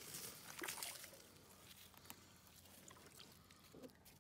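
Faint water sloshing and scraping as a large northern pike is slid headfirst back down a hole in the ice; otherwise near silence.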